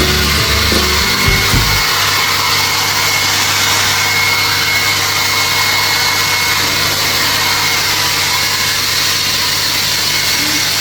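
Hair dryer blowing steadily: a continuous rushing of air with a thin high whine from the motor.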